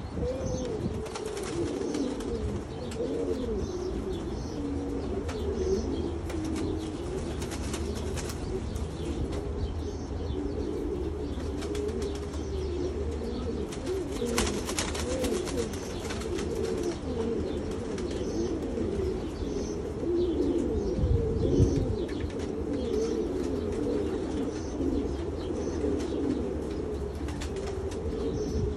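Domestic pigeons cooing continuously, several birds' low warbling coos overlapping. Faint high chirps repeat throughout, with a few brief rustles and a low thump about three-quarters of the way in.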